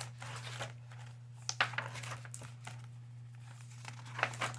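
Paper rustling and crinkling in three short bouts as a book's pages are handled and turned, over a steady low hum.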